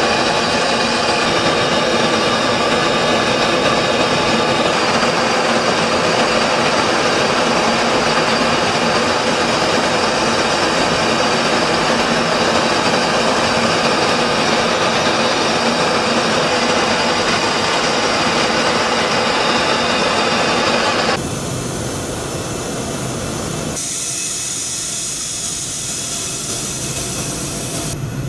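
Steady jet engine noise and rushing air of an aircraft in flight, heard on board. About 21 seconds in it cuts abruptly to a quieter jet engine noise, which changes again a few seconds later.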